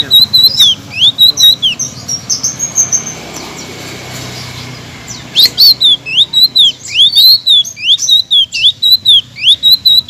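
Caged selendang biru songbird singing a fast string of loud, rising-and-falling chirping notes, breaking off about two seconds in and starting again about five seconds in.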